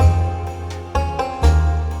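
Instrumental music with plucked-string notes over a steady bass pulse.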